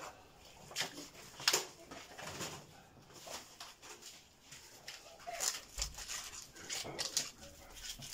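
Brief rustles and clicks of plastic food packaging and trays being handled, a few seconds apart.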